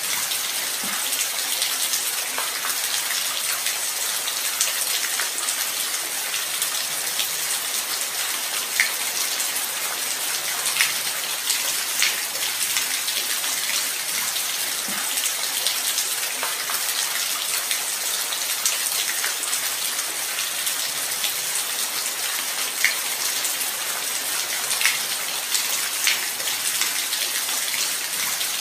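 Steady light rain: an even hiss with scattered louder individual drops ticking now and then.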